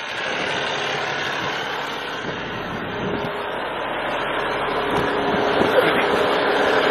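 Cummins ISX diesel engine of a semi truck idling, heard as a steady even rush of engine noise that grows a little louder toward the end.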